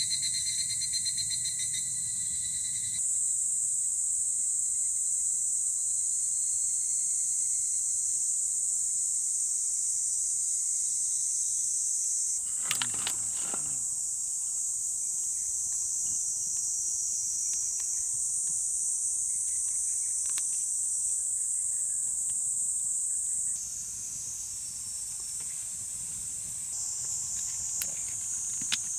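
A steady, high-pitched chorus of summer insects, whose character shifts abruptly a few times. About halfway through there is a brief falling sweep, and a few faint clicks come near the end.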